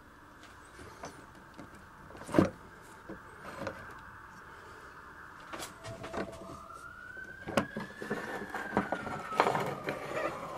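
Scattered clicks and knocks of hardware being handled, the loudest about two seconds in. From about six seconds in an emergency-vehicle siren wails, slowly rising and falling in pitch.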